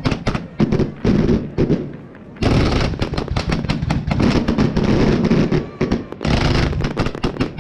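Display fireworks going off in rapid volleys of sharp bangs and crackles over a low rumble. The firing eases briefly about two seconds in, then comes back dense.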